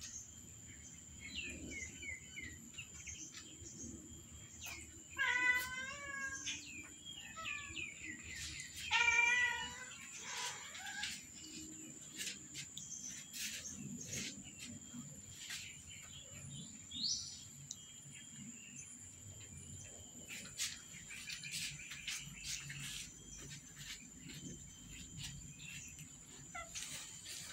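Domestic cats meowing: two loud, wavering meows about five and nine seconds in, a few shorter calls around them, and faint clicks in between.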